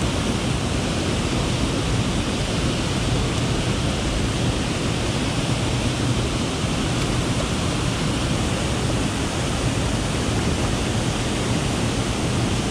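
Small waterfall pouring over a rock ledge: a steady, even rush of falling water.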